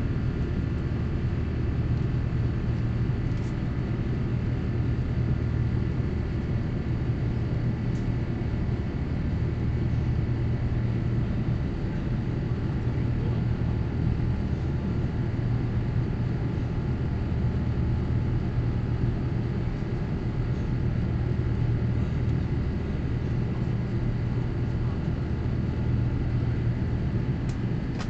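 Steady cabin noise inside an Airbus A350-1000 in flight: the low, even drone of its Rolls-Royce Trent XWB engines and airflow over the fuselage, with a faint steady whine above it.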